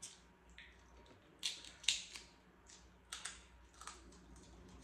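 Snow crab leg shells being cracked and snapped apart by hand: a series of sharp, dry crackles, the loudest about one and a half to two seconds in, with a few more about three and four seconds in.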